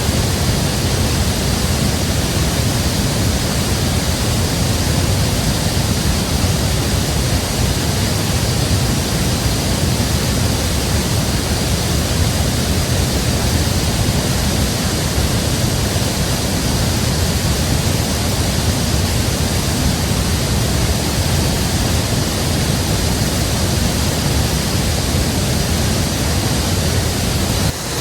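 Dolan Branch, a creek running high after heavy rain, rushing loudly and steadily.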